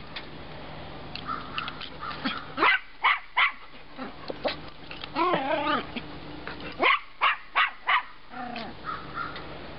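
Dog barking in two quick runs, three barks and then four, about four seconds apart, with a brief wavering cry between them.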